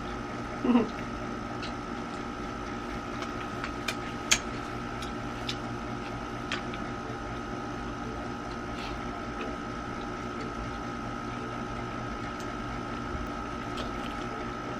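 Steady machine hum with a constant high whine over it, and a few faint clicks and taps. A short vocal sound comes about a second in.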